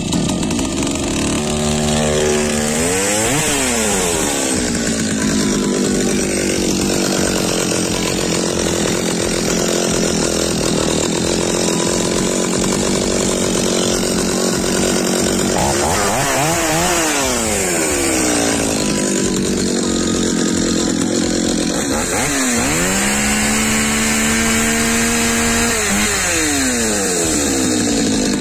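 STIHL 023 two-stroke chainsaw cutting wood. The engine note drops and labours as the chain bites into the log, runs steady under load, then rises again as it clears the cut, several times over. The saw is running again after a repair to a no-start fault.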